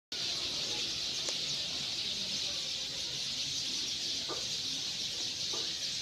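Many birds chirping together in dense trees: a continuous, high-pitched twittering chorus, with a few brief louder notes standing out.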